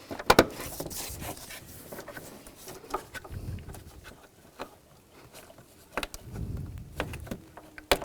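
Scattered sharp clicks and light knocks, about one a second, from small plastic retainers being pushed into place on a car's hood latch assembly, with faint handling and rubbing between them.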